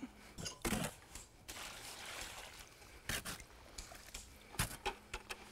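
Shovel mixing thick wet mortar in a steel wheelbarrow: the blade scrapes and knocks against the pan at irregular intervals, and the wet mix sloshes between strokes.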